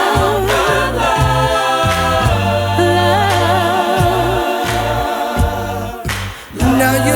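Choir singing in sustained harmony with vibrato over a steady low bass. About six seconds in, the music breaks off briefly with a rushing noise, then comes back in.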